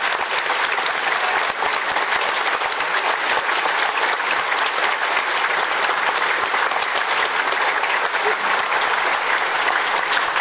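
Theatre audience applauding steadily, a dense patter of many hands clapping, as the performers take their bow and leave the stage.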